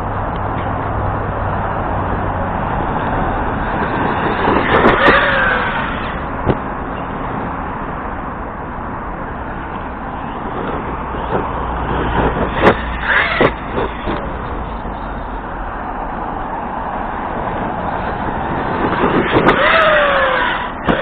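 Arrma Kraton RC truck's brushless BLX motor whining in three bursts of throttle, each whine falling in pitch as the truck slows, with a few sharp knocks from the truck hitting the ground. A steady rushing noise runs underneath.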